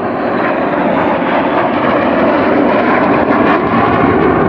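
A pair of Sukhoi Su-22 fighter-bombers flying by in formation, each with a single Lyulka AL-21F-3 turbojet, giving a loud, steady jet engine noise that builds a little over the first couple of seconds.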